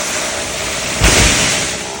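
Chainsaw running and cutting into wood, with a sudden louder burst about a second in, then easing off near the end.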